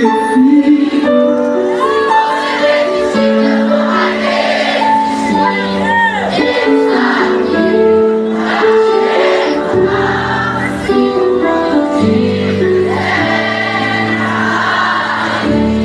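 Live gospel music: a singer over held keyboard chords, with low bass notes coming in about ten seconds in.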